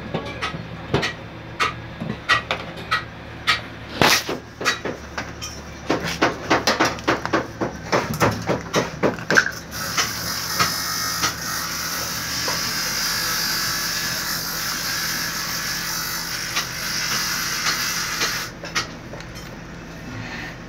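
Plastic and metal parts of an electric fuel pump assembly being handled and fitted back into a car's fuel tank: a run of sharp clicks and knocks, then from about halfway a steady rustling hiss that stops shortly before the end.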